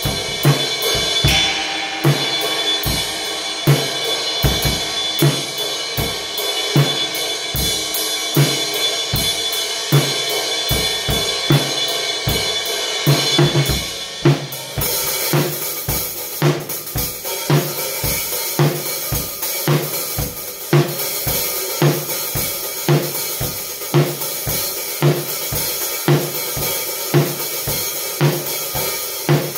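Drum kit played in a steady groove: bass drum and snare strokes under continuous cymbal playing, the cymbals turning to a brighter, steady wash about halfway through.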